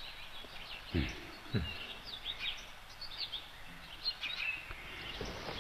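Small birds chirping in the background, many short high calls scattered throughout. Two soft low thumps come about a second in, a little over half a second apart.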